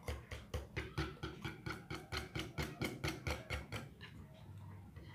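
A utensil beating a thick chocolate cream mixture in a pot in quick, even strokes, about four a second, then stopping near the end.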